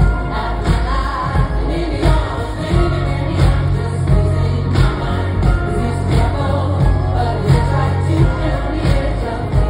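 Live pop song played loud through an arena sound system: a female lead vocalist singing with the band over a heavy bass and a steady beat.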